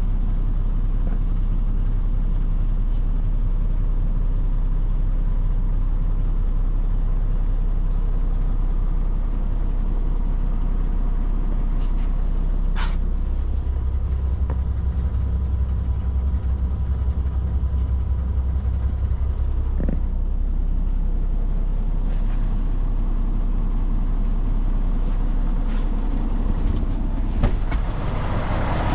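2021 International LoneStar semi tractor's diesel engine idling, a steady low rumble heard from inside the sleeper cab, with a single sharp click about halfway through.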